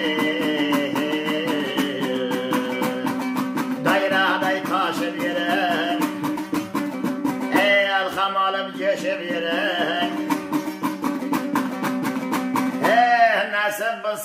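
A man sings an Uzbek bakhshi folk song in long phrases over a two-stringed dombra strummed in a fast, even rhythm with a steady drone underneath.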